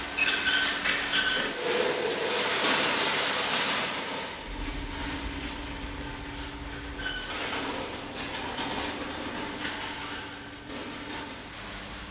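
Dry branches of a hanging tree scraping and crackling across a concrete floor, with scattered small knocks over a steady noisy scratching. A faint steady hum runs underneath and drops out now and then.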